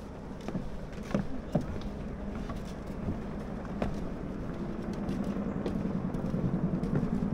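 Footsteps knocking on wooden stair treads, irregular knocks a half second to a second apart, over a steady low rumble that grows louder toward the end.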